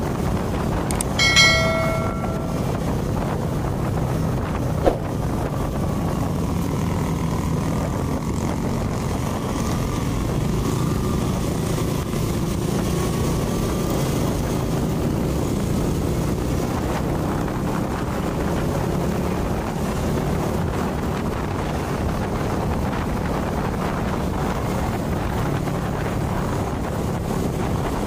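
Ride on a motor scooter in traffic: steady engine drone with road and wind noise on the microphone. A horn sounds briefly about a second in.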